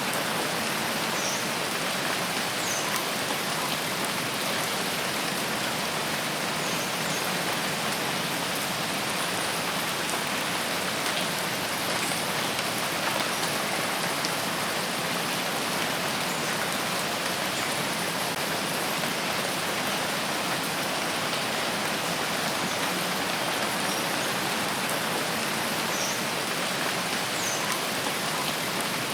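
Steady rain falling in a forest, an even hiss with no change in level, with a few faint short high chirps about a second in and again near the end.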